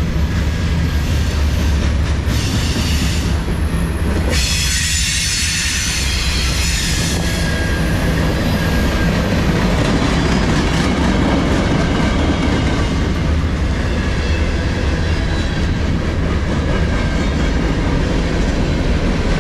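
Freight cars of a CSX manifest train rolling past close by: a steady rumble and clatter of steel wheels on the rails. A high wheel squeal rides over it from about two and a half to seven seconds in.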